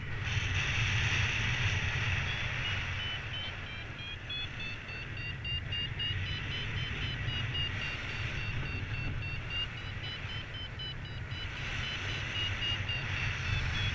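Paragliding variometer beeping in a fast, even run of short tones whose pitch drifts a little up and down, the sound a vario makes when the glider is climbing in lift. Under it, wind rumbles and hisses steadily on the microphone.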